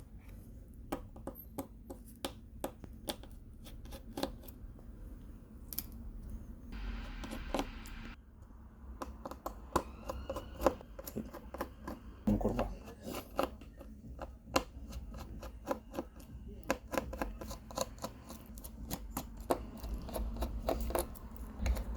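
Scattered light clicks and scrapes of a small Phillips screwdriver backing screws out of a smartphone's internal frame, with a brief hiss about seven seconds in.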